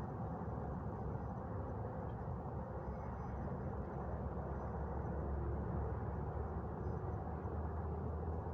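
Steady outdoor ambience: wind blowing, an even low rumble with no distinct events.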